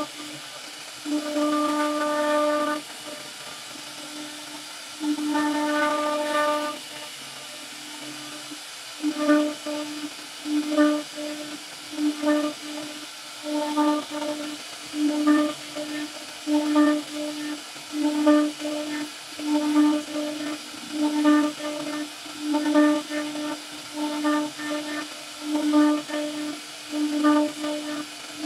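CNC router spindle whining at one steady pitch as its cutter carves a twisted rope pattern into wood. Two longer stretches of whine come first, then it swells and fades in a steady rhythm.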